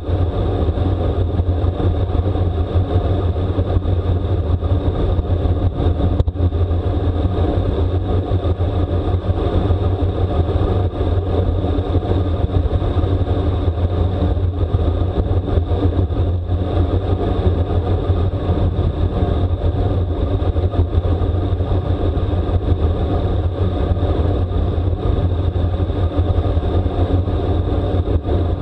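Wind rushing over the microphone of a camera on a moving bicycle, a steady low rumble with a hiss above it.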